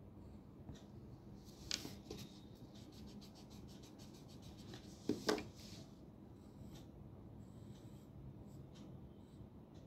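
Pencil scratching on drawing paper and an eraser rubbed quickly back and forth over it in a run of short strokes, with a couple of sharp knocks, the loudest about five seconds in.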